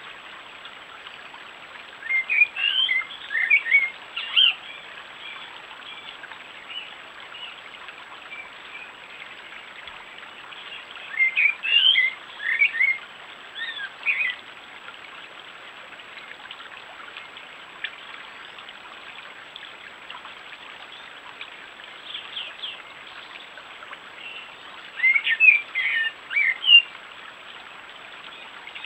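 A songbird singing three short phrases of quick, high notes, one a couple of seconds in, one near the middle and one near the end, with a few faint notes between. A stream runs steadily underneath.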